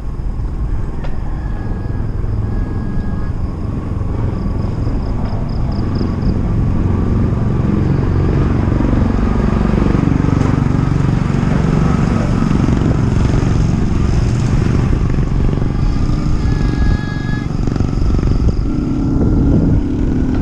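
Road traffic: a passing motor vehicle, motorcycle-like, its engine dropping in pitch and then rising again around the middle, over a steady low rumble of wind and road noise. A few short high tones sound near the start and near the end.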